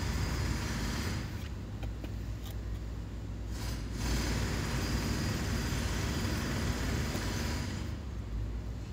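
Steady low rumble of distant engine noise, growing a little louder about four seconds in.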